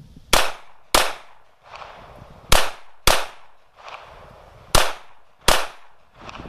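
CZ 82 pistol firing 9x18 Makarov rounds: six shots in three quick pairs, each about half a second apart, with a short echo trailing every shot.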